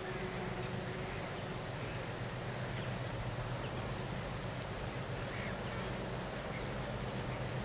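Low, steady rumble of a freight train receding behind its 2TE10M diesel locomotive, with the tail of a horn blast fading out at the very start. A few faint bird chirps sound over it.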